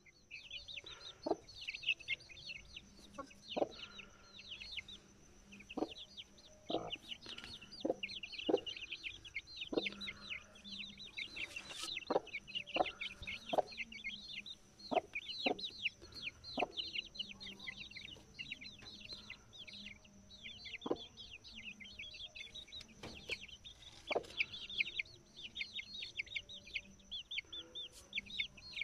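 Aseel chicks peeping non-stop in a dense chorus of short, high, falling cheeps, while an Aseel hen gives short low clucks every second or two, the clucking of a mother hen tending her brood.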